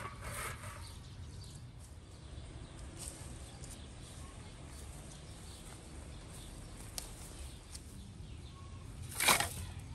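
Quiet outdoor ambience under a steady low rumble, with faint rustling of weeds and dry grass as someone walks through them; a short, louder rustle about nine seconds in.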